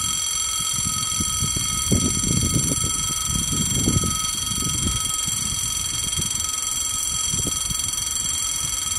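Electric warning bell, as at a railway level crossing, ringing steadily with a bright, even tone. Under it runs a low rumble of a train or wind that swells twice.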